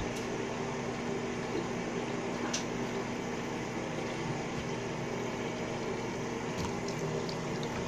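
Water running steadily from a bathroom tap, with a few faint knocks.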